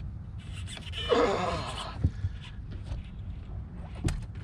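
A short wordless voice sound that falls in pitch, about a second in, over a steady low rumble, with two light knocks later on.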